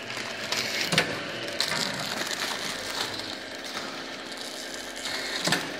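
Labelling line with a Savema SVM 107 intermittent thermal transfer overprinter running, a steady mechanical hum broken by irregular sharp clicks and clacks from the mechanism.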